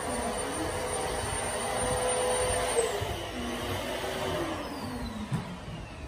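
An electric blower motor runs with a steady whine over rushing air, then switches off just under three seconds in and winds down in a slowly falling whine.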